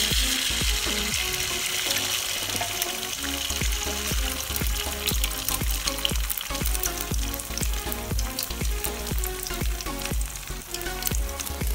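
Beaten egg with chopped onion poured into hot oil in a steel wok, setting off a loud sizzle at once that settles into steady frying. Background music with a steady beat plays underneath.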